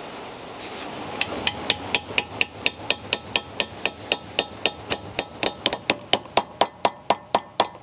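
Hammer tapping an 11 mm socket to drive new valve stem seals down over the valve guides of a BMW M20 cylinder head. Quick, even, metallic taps, about four a second, start about a second in and keep on steadily.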